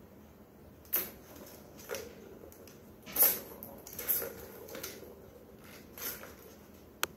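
Plastic tiered ball-track cat toy rattling and clacking in short bursts as a kitten bats at it and the balls knock around the track, about seven times, the loudest a little before halfway, with one sharp click near the end.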